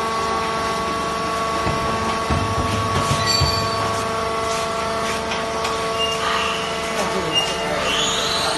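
Vertical baler's hydraulic pump and motor running with a steady, many-toned whine, with scattered clicks and knocks in the middle.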